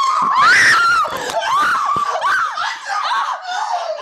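A person's very high-pitched shrieks, one after another, each rising and falling in pitch.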